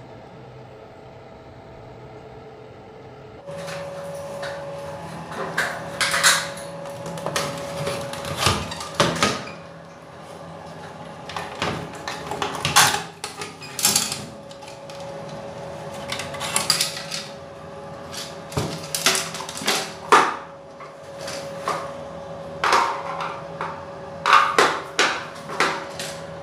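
Royu ceiling exhaust fan running with a steady hum while its plastic grille cover is pried loose and handled, giving irregular knocks and plastic clatter that start a few seconds in.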